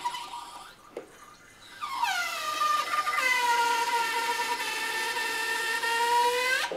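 Two-post vehicle lift being lowered, its hydraulic release valve letting the pressure off the rams: a click about a second in, then a whine that starts high, drops in pitch and holds steady.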